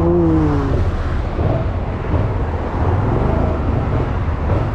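Vehicle on the move: a loud, steady low rumble of engine, road and wind noise on the microphone, with a short falling tone in the first second.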